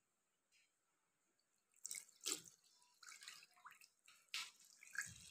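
Water splashing and dripping as feet are washed, in irregular splashes starting about two seconds in.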